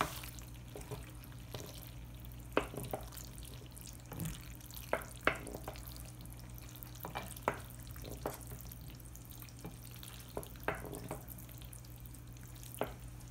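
Wooden spoon stirring elbow macaroni through thick cheese sauce in a ceramic bowl: wet stirring with scattered sharp clicks as the spoon knocks against the bowl, over a steady low hum.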